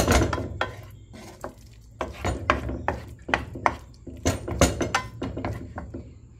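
A cooking utensil scraping and clacking irregularly against a nonstick frying pan while dumplings and salt fish with tomatoes are stirred and turned.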